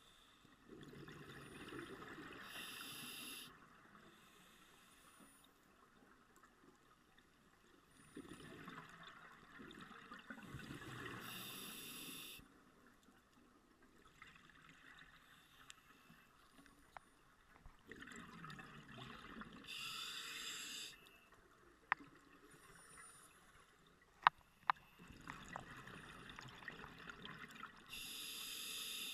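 Scuba diver's regulator breathing underwater: four slow breath cycles, each a couple of seconds of bubbling ending in a short sharp hiss. A few sharp clicks in the quiet gap after the third breath.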